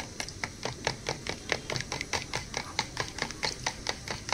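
Curd (dahi) being beaten by hand in a bowl: a utensil clicks against the bowl in a quick, steady rhythm of about five strikes a second.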